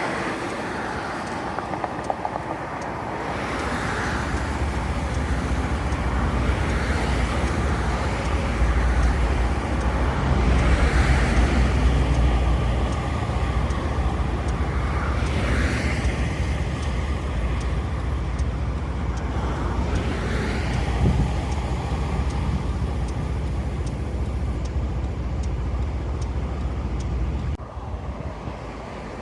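A train running by with a heavy low rumble that builds, is loudest about ten seconds in, and drops off suddenly near the end.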